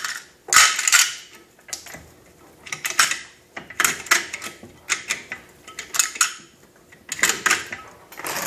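Hand-cranked RPD belt loader at work: cartridges and steel belt links clink and clatter against the sprockets and hopper in sharp clusters about once a second as the crank is turned and rounds are fed in.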